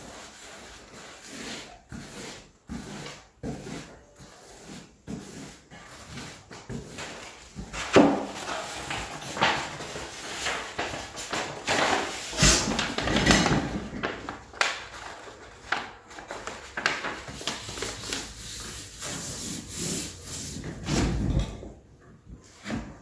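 A brush scrubbing white glue onto a wooden OSB subfloor in short, irregular strokes, with stiff brown paper rustling and crinkling as a piece is handled and laid down, loudest through the middle.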